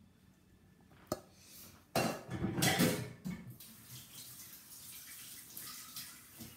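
A sharp click, then an emptied stainless steel saucepan clattering and scraping as it is put down for about a second and a half, followed by a softer steady rushing noise.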